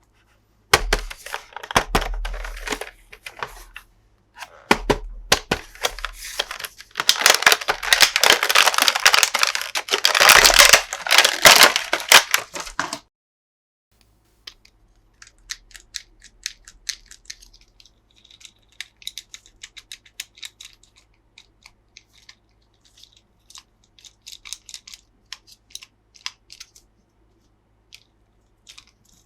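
Toy packaging being torn open and crinkled, loud and crackly for the first dozen seconds, then stopping abruptly. Afterwards only light clicks and handling noises.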